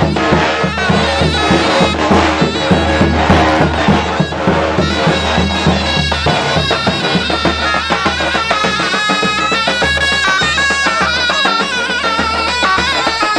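Davul and zurna playing a Turkish folk tune: the zurna's shrill reed melody over the beat of the big double-headed davul drum. The drum strokes are densest in the first half, and the wavering zurna line carries the second half.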